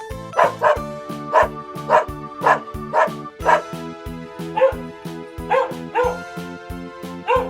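A dog barking again and again, about a dozen short barks, over background music with a steady beat.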